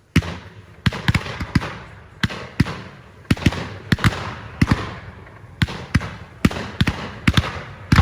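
Fireworks going off: an irregular string of sharp bangs, two to three a second, each trailing off in a short echo.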